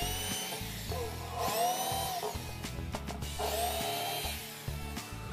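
Corded electric drill running into plywood in three short bursts, its motor whining up in pitch and winding down each time.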